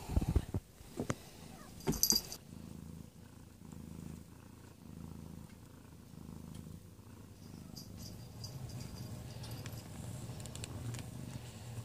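Tuxedo mother cat purring as she nurses her newborn kittens: a low rumble that swells about once a second and grows steadier near the end. A few sharp knocks and rustles in the first two seconds are the loudest sounds.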